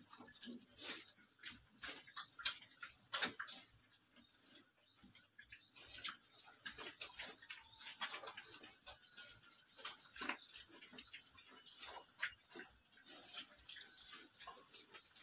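Young pigs snuffling and grunting as they root about a concrete pen. Behind them a high chirp repeats about twice a second.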